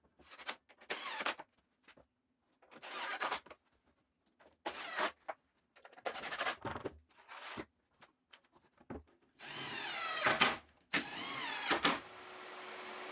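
Cordless drill/driver running in a series of short bursts as it drives wood screws into a framing-lumber shelf frame, the motor's whine rising and falling in pitch on the longer runs near the end. A steady hum starts near the end.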